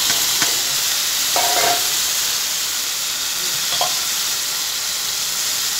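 Mint-coriander marinated chicken going into hot oil and fried onions in an aluminium pot, sizzling steadily, with a few clicks and scrapes of a metal spatula against the pot.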